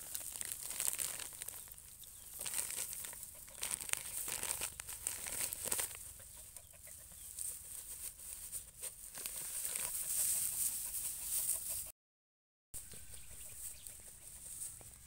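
Chickens clucking, with a brief total dropout about twelve seconds in.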